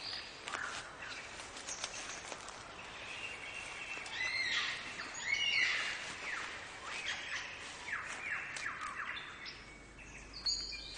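Forest birdsong with several birds calling at once. Chirps, whistles and quick downward-sweeping notes overlap throughout, loudest in the middle.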